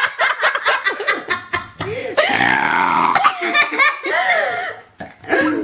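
A little girl lets out one long, raspy burp about two seconds in, with people laughing before and after it.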